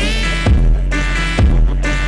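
Background music with a steady beat: a low drum thump just under once a second under a pitched melody whose notes slide upward.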